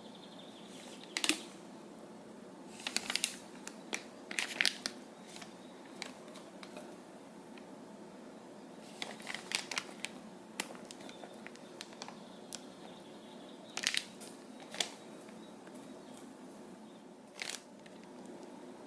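Scattered crinkling and light clicks from baking tools and plastic being handled, in several short clusters, over a faint steady hum.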